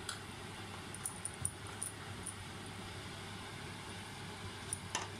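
Wooden spatula stirring thick coconut halwa in a non-stick kadhai: soft scraping with a few light taps against the pan, the clearest near the end, over a steady low hum.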